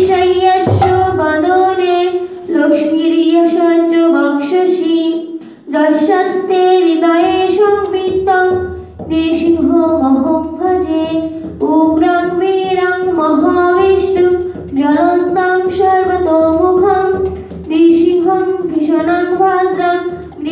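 Devotional kirtan chant sung by a single high voice in repeating melodic phrases a few seconds long, with a mridanga drum played underneath.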